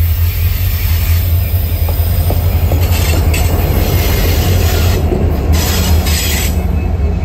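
Norfolk Southern diesel freight locomotives passing close by: a loud, steady low engine rumble with rail and wheel noise, and bursts of high hiss about three seconds in and again around five to six seconds in.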